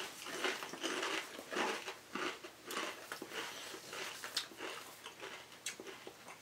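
Kettle-cooked potato chips being chewed: irregular crunches that thin out and grow fainter toward the end.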